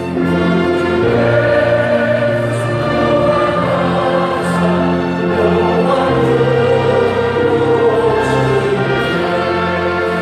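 Choir singing a praise hymn in sustained, slowly changing chords, with instrumental accompaniment.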